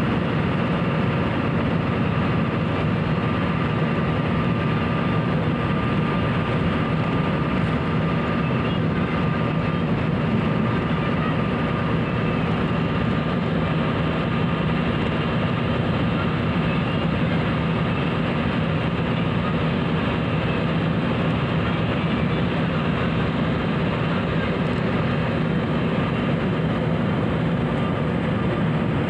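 Steady engine drone and tyre-road noise of a vehicle cruising at high speed, heard from inside the cabin.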